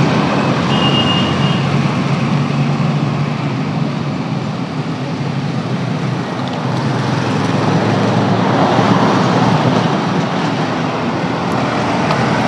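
Roadside highway traffic: vehicles running past close by, a steady wash of engine and tyre noise that swells as one passes near the end. A short high two-note tone sounds about a second in.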